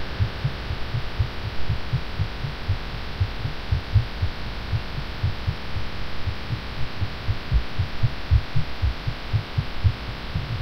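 A woman's fast heartbeat, recorded while she was ill and had taken cough medicine: low thumps in quick close pairs, over a steady hiss and hum.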